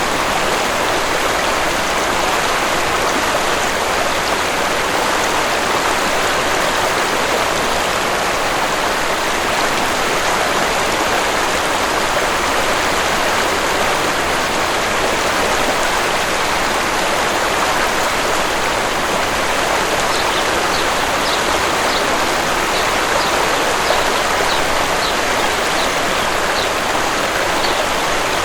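Waterfall rushing steadily, a dense even splashing of falling water. In the last third, faint short bird chirps come through above it, a few at a time.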